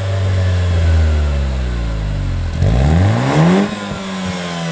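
Nissan Juke Nismo RS's turbocharged 1.6-litre four-cylinder heard at the exhaust, running steadily and then revved once about two and a half seconds in, its pitch climbing quickly before dropping back to idle.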